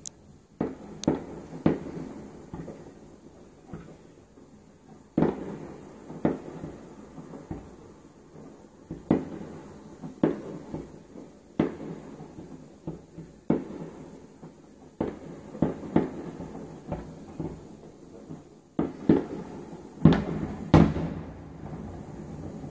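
Aerial firework shells bursting one after another: sharp bangs with echoing tails at irregular gaps of one to a few seconds, coming thicker near the end.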